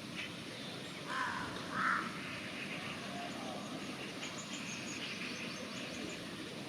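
Raven giving two short, harsh calls in quick succession about a second in, over a steady background hiss.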